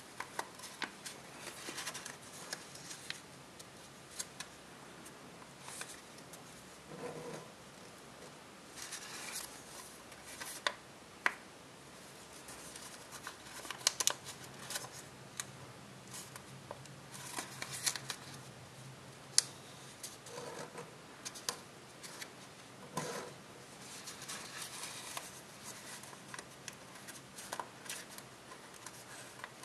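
Copper tissue foil paper crinkling and crackling as it is folded and creased by hand. The sound is a run of irregular sharp crackles with softer rustling between them.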